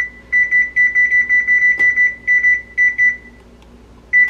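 Whirlpool electric range's oven keypad beeping as the temperature key is pressed over and over, a quick run of about a dozen short high beeps stepping the bake setting up to 425°F. One more beep comes just after four seconds in, as Start is pressed.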